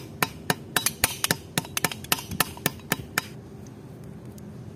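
Small hammer tapping aluminium cable lugs to crimp them onto the conductors of a four-core aluminium cable, used in place of a crimping tool. The sharp strikes come at about four a second and stop a little over three seconds in.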